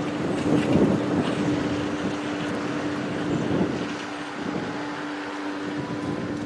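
Tractor-drawn vacuum tanker running, drawing surface water from a puddle up its hose: a steady mechanical drone at one unchanging pitch, with wind buffeting the microphone in the first seconds. The sound gradually fades toward the end.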